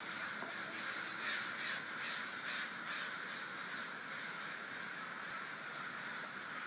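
A large flock of crows cawing overhead, many calls overlapping into a steady chorus, with a louder run of about five evenly spaced caws between one and three seconds in.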